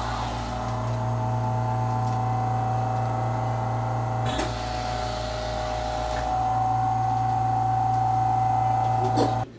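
RF vacuum body-contouring machine running with a steady hum and whine from its suction pump, with a click about four seconds in and another near the end. The sound then cuts off suddenly.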